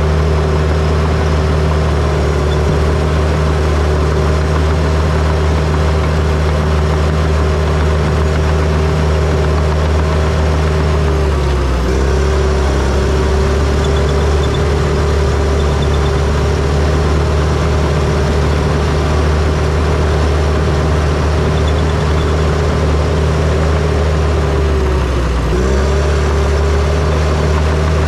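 John Deere bulldozer's diesel engine running steadily, with the engine note dipping twice, about halfway through and again near the end, and recovering each time as the engine bogs under load.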